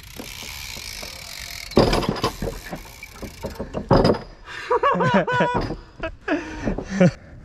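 Mountain bike going down a rooty trail: a high rolling hiss, then from about two seconds in a run of loud knocks and rattles as the bike goes over the roots, with a few short pitched squeals in the second half.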